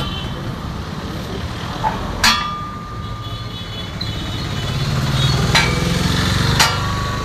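Steel struck with a hammer three times, each blow ringing on after the hit, over a steady low rumble that grows louder in the second half.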